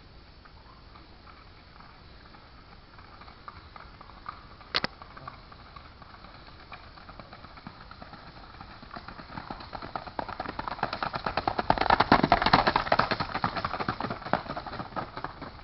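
Hoofbeats of a racking stallion shod with keg shoes, moving at a fast single-foot: a rapid, even run of hoof strikes that grows louder, peaks as the horse passes close about 12 seconds in, then fades. A single sharp click sounds about 5 seconds in.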